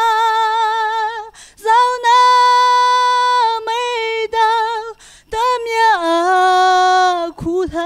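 A young woman singing solo and unaccompanied into a microphone, holding long notes with vibrato. She breaks off briefly several times, then steps down to a lower held note about six seconds in.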